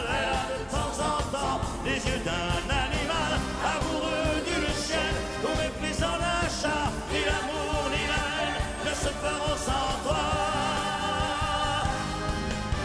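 A man singing a slow chanson with wavering held notes over live band accompaniment.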